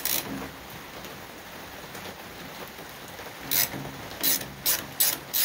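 Socket ratchet working a 12 mm bolt loose: a short burst of clicks at the start, a low hiss for a few seconds, then short runs of ratchet clicking about two or three times a second from about three and a half seconds in.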